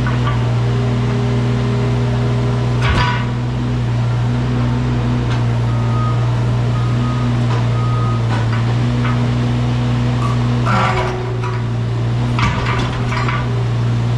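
Wacker Neuson mini excavator's diesel engine running steadily under work, with short metallic clanks and knocks about three seconds in and again a few times near the end.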